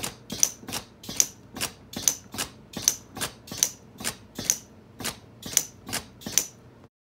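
Pneumatic eyelid cylinder of an animatronic head cycling rapidly, about two to three sharp strokes a second, each a click with a short puff of air. The strokes cut off abruptly near the end.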